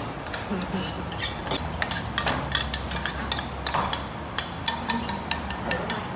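A metal spoon clinking and scraping against a small stainless-steel sauce cup, a run of light, irregular clicks, as sauce is scraped out onto a bowl of bibimbap. A low steady hum lies underneath.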